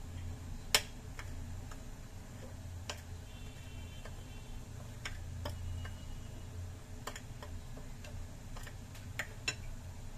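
Steel spoon clicking and scraping against a ceramic bowl while stirring dry semolina and flour: scattered light ticks at an uneven pace, the sharpest about a second in, over a low steady hum.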